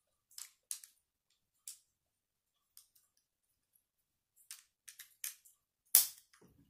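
Plastic Lego bricks clicking as they are pressed and snapped together by hand: a run of short, sharp clicks at an uneven pace, the loudest a firm snap about six seconds in.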